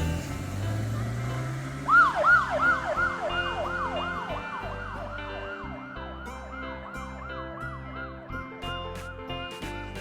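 Police car siren sound effect in a fast yelp, about three sweeping cycles a second, starting about two seconds in and slowly fading away, over background music.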